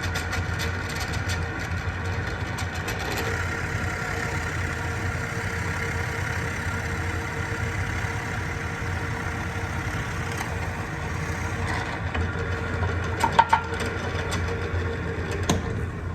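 Power drill motor running steadily while boring holes through a wooden workbench, with a couple of brief knocks near the end.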